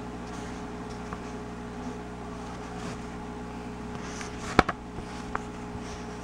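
Steady low machine hum made of several held low tones, like a fan or appliance running in a small room. A single sharp click stands out about two-thirds of the way through, followed by two faint ticks.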